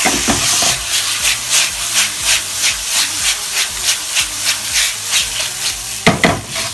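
Potato slices and tomato chunks stir-fried in a wok over high heat: a steady sizzle that pulses about three times a second with the spatula's strokes, and a louder burst near the end.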